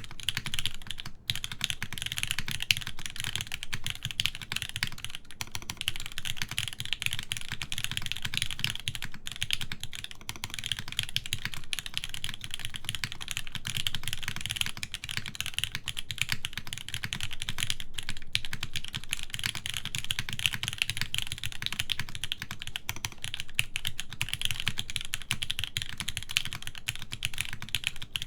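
Fast, continuous typing on a Kitsune mechanical keyboard with Gateron Oil King linear switches, an aluminium plate and GMK ABS keycaps: a dense stream of key strokes with a brief pause about a second in.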